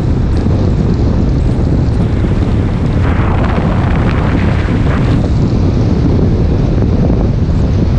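Wind rushing over the microphone of a camera on a moving car, with the car's road noise underneath. A brighter hiss swells about three seconds in and fades about two seconds later.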